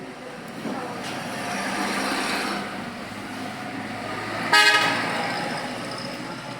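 Road traffic noise swelling and fading, then a short, loud vehicle horn toot about four and a half seconds in.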